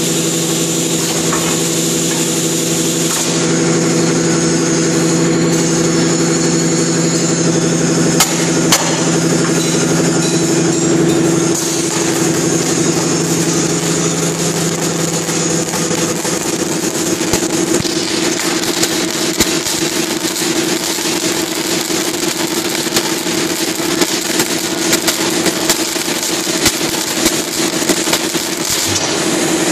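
Hydropneumatic flash butt welder welding steel window sections: the machine hums steadily, and through the second half dense crackling and spitting come from the flashing joint as it throws sparks.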